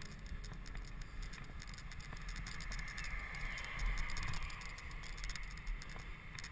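Riding noise from an HP Velotechnik Streetmachine recumbent bicycle rolling along a paved path: wind rumbling on the microphone and a stream of small quick rattles and ticks from the bike. A passing car swells up and fades away around the middle.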